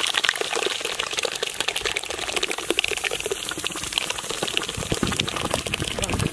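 Thick mashed moong dal pouring from a large aluminium pot into a hot iron kadai of ghee-roasted wheat flour. It makes a steady gushing pour with a dense crackling sizzle as the wet paste lands in the hot ghee.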